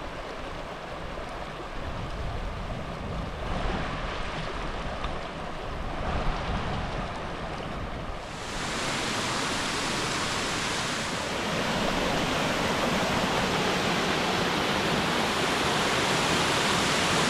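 Water rushing: a stream running over rocks, then from about halfway a louder, fuller rush of a waterfall that grows a little louder again a few seconds later.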